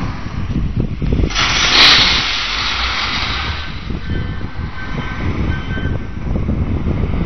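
Ballast loading into Us hopper wagons: a hissing rush of crushed stone pouring from a loader's bucket starts about a second in and dies away over a couple of seconds. Wind buffets the microphone throughout, and faint short repeated beeps follow the rush.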